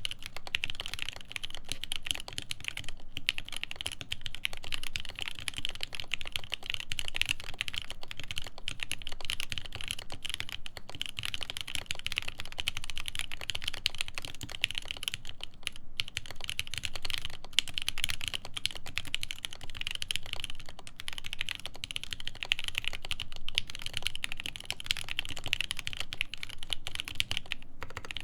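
Steady, fast typing on a Nunu FE custom mechanical keyboard with lubed Everglide Tourmaline Blue v2.5 switches, a full polycarbonate plate and GMK keycaps: a dense run of keystrokes with a few very short pauses.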